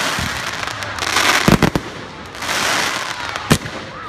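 Aerial fireworks: shells bursting with sharp bangs, loudest about a second and a half in and again near the end, over a dense crackling hiss from showers of white glittering stars.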